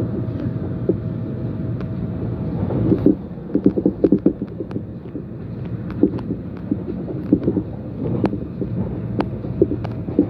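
Passenger train running on the rails at about 65 km/h through a tight curve, heard from inside the car. A steady low rumble with a faint steady tone that stops about three seconds in, then irregular knocks and clatter.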